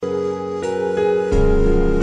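Slow ambient music of sustained, held tones, with the chord shifting a few times and a deep bass note coming in about two-thirds of the way through.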